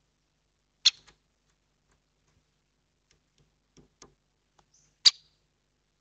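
A great spotted woodpecker giving two sharp single 'kik' calls, about a second in and again about four seconds later, with a few soft knocks between them as it drops down onto the wooden bench.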